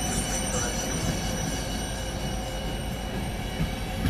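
ÖBB passenger coaches of a Eurocity train rolling past on the adjacent track as it pulls in to stop, with a continuous rumble under a steady high-pitched squeal from the brakes and wheels. A couple of light clacks as wheels cross rail joints.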